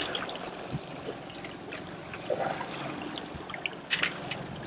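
Water splashing and dripping off a fishing landing net as it is lifted out of the lake with a small fish in it. There are scattered small splashes throughout and a louder splash and pour about four seconds in, over the steady wash of water against the boat.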